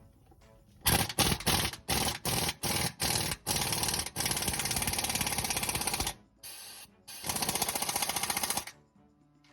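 Impact wrench hammering on a tight bolt: a string of short bursts, then two longer runs.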